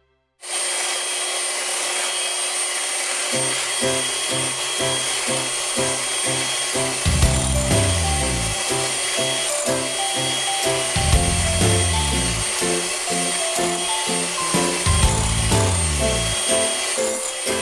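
Electric hand mixer starting abruptly about half a second in, then running at a steady speed with a constant motor whine as its twin wire beaters whisk egg whites in a ceramic bowl. Background music with a steady beat comes in about three seconds in.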